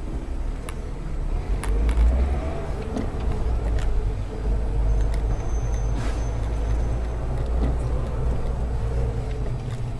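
Car driving, heard from inside the cabin through a dashcam microphone: a steady low road-and-engine rumble with a few light clicks and rattles.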